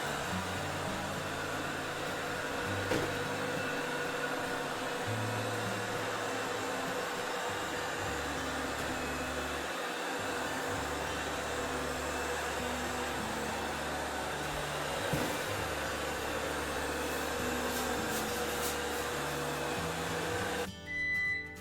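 iMartine C900 robot vacuum cleaner running: a steady motor whir and suction hiss with a constant whine, cutting off suddenly near the end. Background music plays underneath.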